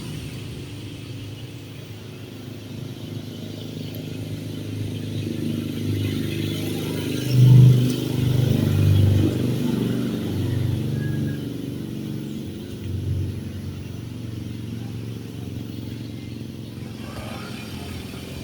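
A motor vehicle's engine running. It rises to its loudest about seven to nine seconds in and then fades back to a steady rumble.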